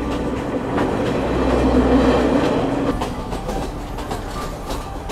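Passenger train running along the line, heard from on board: a steady rumble of wheels on rails with faint clicks.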